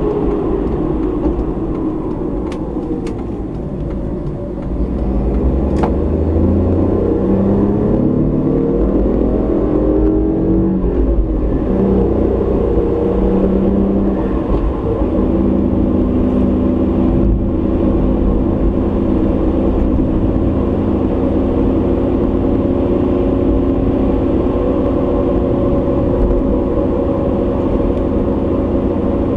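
Car engine and tyre road noise heard from inside the car by a dashcam. The engine note drops over the first few seconds, rises as the car accelerates for several seconds, then holds steady at cruising speed.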